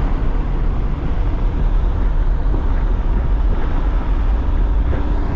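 Car driving along the road: a steady, loud rumble of road and engine noise.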